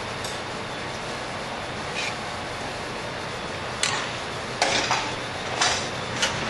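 Utensils and dishes clinking and clattering a few times in the second half, as pasta is plated, over the steady background noise of a busy kitchen.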